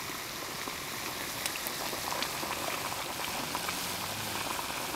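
Maple sap boiling hard in a wide flat steel evaporator pan over a wood fire: a steady bubbling hiss with scattered small pops.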